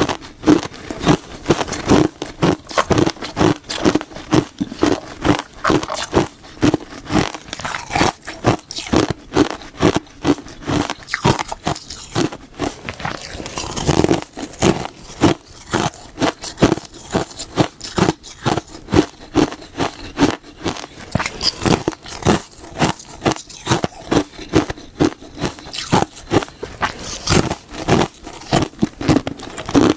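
Close-miked crunchy chewing: something hard being bitten and crunched in a steady run of about two crunches a second.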